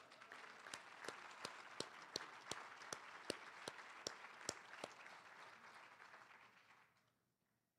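Audience applauding, with one nearby person's claps standing out at about three a second. The applause dies away about seven seconds in.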